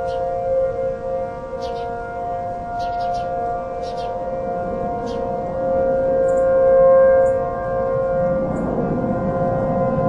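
Several outdoor warning sirens sounding at once during a test, heard from a distance as a steady, slightly wavering chord of tones that swells about two-thirds of the way through. A few faint short high chirps sound over it.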